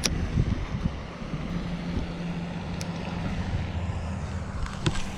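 Wind rushing over a body-worn GoPro's microphone, under a steady low engine drone, with a couple of sharp clicks near the start and near the end.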